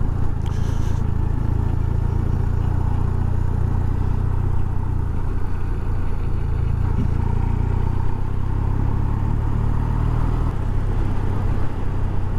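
BMW R1200C's air/oil-cooled boxer twin engine running steadily under way, heard from the rider's position along with road noise.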